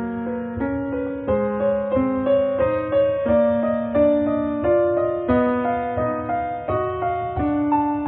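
Background piano music: a slow, gentle melody of struck notes over sustained chords, a new note about every half to three-quarters of a second, each dying away after it is struck.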